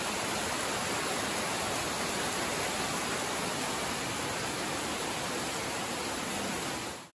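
Heavy rain pouring down and streaming off a thatched palm roof, a steady hiss that fades away near the end.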